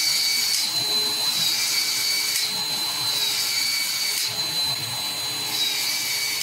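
Battery-powered PEX expansion tool expanding the end of a PEX pipe and its ProPEX ring: a steady high motor whine, with the tool cycling through a new expansion stroke about every two seconds.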